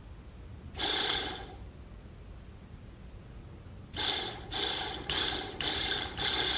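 Shurflo 12 V diaphragm water pump motor spinning in short spurts as power is touched to it on the bench, pump partly disassembled: one brief run about a second in, then about five quick bursts in a row from about four seconds on. The motor is being test-run to see whether it works and whether the small solenoid on the pump head clicks.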